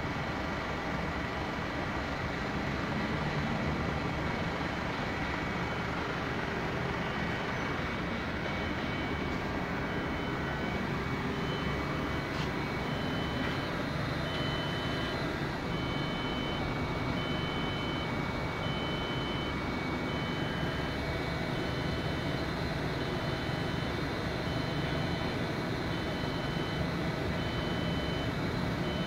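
Mori Seiki SV-400 vertical machining center running with a steady mechanical hum. From about eight seconds in, a high beep pulses regularly, a little more than once a second.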